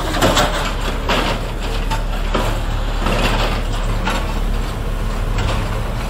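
JCB backhoe loader's diesel engine running steadily while its bucket knocks down a masonry building, with repeated crashes and clatter of falling debris.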